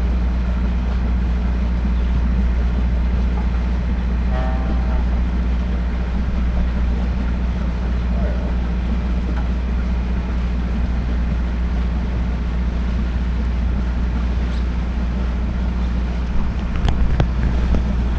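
A boat engine running steadily at low speed, a constant low hum. Near the end come a few faint clicks.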